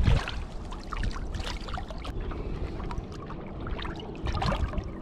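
A hooked fish splashing at the water's surface beside a boat: irregular splashes and drips, with a louder flurry of splashing near the end.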